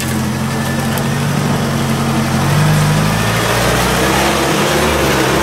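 UAZ-469 off-road vehicle's engine running at low revs as it crawls close past over rough ground. The revs rise briefly about halfway through, then settle back.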